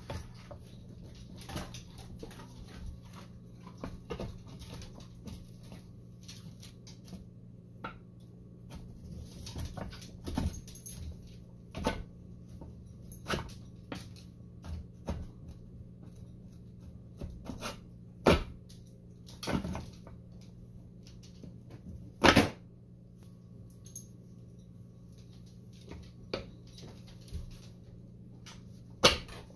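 Irregular metal clicks and knocks as a propeller shaft and bearing carrier are worked into a Mercury outboard lower unit's gear housing, with a few sharper knocks in the second half, over a steady low hum.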